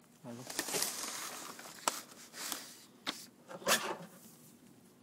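Stiff white sheets rustling and scraping as they are handled and slid across a wooden jig, with a sharp click about two seconds in and a few shorter scrapes after it.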